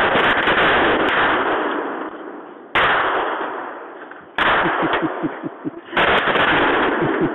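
Several semi-automatic rifles of the AK-47 and AR-15 type firing rapid strings together, the shots running into one dense, continuous crackle. It fades and then breaks back in abruptly about three times.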